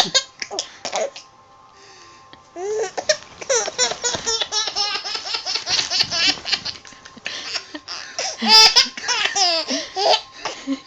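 A baby boy laughing in long runs of giggles, with a short pause a little over a second in.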